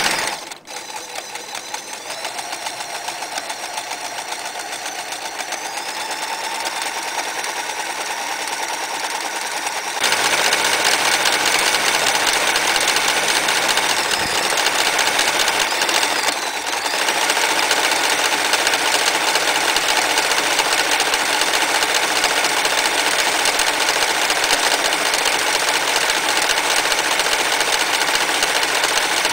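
Frister & Rossmann 503 electric sewing machine running at speed, stitching decorative stitches, with a fast, even stitching rhythm. It gets louder about ten seconds in, dips briefly a little past halfway, and stops near the end.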